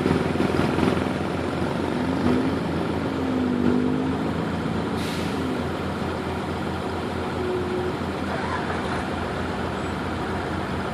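A heavy engine running steadily, with a short hiss about five seconds in.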